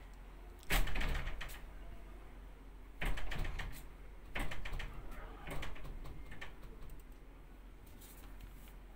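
Gunfire in four quick bursts, each a cluster of sharp cracks with a fading echo, the first about a second in and the loudest, the others following over the next five seconds.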